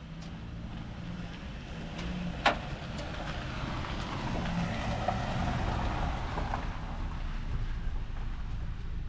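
Steady rushing and handling noise with one sharp snip about two and a half seconds in and a few faint clicks, as a rotted rubber vacuum hose is cut back.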